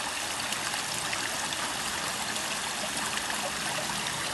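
Steady trickle of running water in a backyard pond, an even splashing hiss without pauses.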